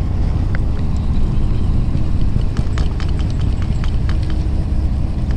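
Fishing boat's engine running steadily with a low rumble, with a scatter of light clicks about halfway through.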